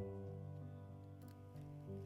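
Background music: soft instrumental with sustained notes, changing chord about every half second, with a few faint clicks about halfway through.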